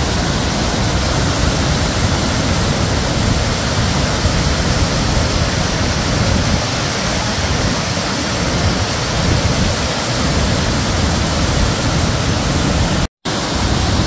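Nugget Falls, a large glacier-meltwater waterfall, rushing steadily as it pours down rocky tiers. Near the end the sound cuts out completely for a split second.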